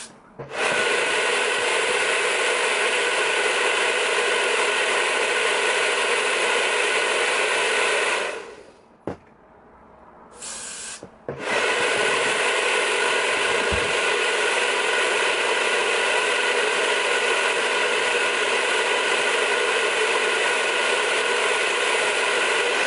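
Handheld hair dryer running steadily, blown on the forehead to dry a freezing spray-on wig glue until tacky. It cuts out about a third of the way in, a short hiss of aerosol glue spray follows, and the dryer starts up again and runs to the end.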